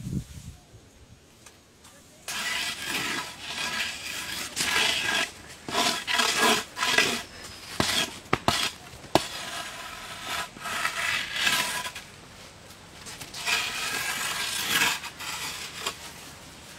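Bamboo pole scraping and rattling against hard dirt ground in repeated bursts, with a few sharp knocks about halfway through.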